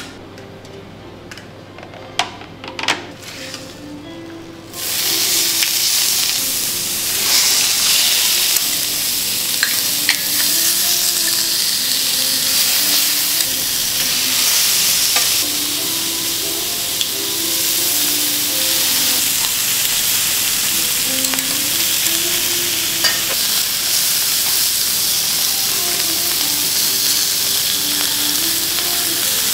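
Seafood and butter sizzling on a teppanyaki steel griddle. After a few light metal clicks of the spatula, a loud, even frying hiss starts about five seconds in and keeps going.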